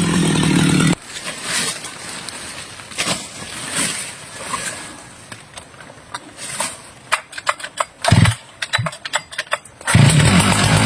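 Stihl chainsaw engine running steadily, cutting out abruptly about a second in; then several seconds of scattered clicks and knocks, and a small engine running steadily again near the end.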